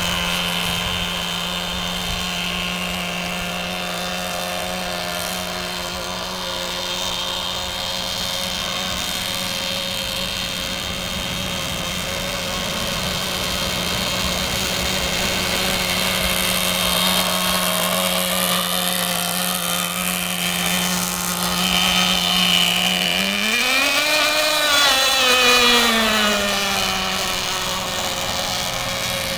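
Small nitro glow-fuel engine of a radio-controlled speedboat running at high revs, a steady high buzz. About 23 s in, its pitch rises and then falls over a few seconds, and it starts climbing again at the very end.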